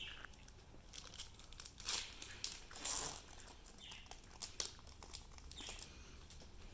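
Soft, irregular rustling and crinkling from a Pokémon booster pack being handled, with the foil wrapper crinkling and the cards sliding against each other as they are flipped through.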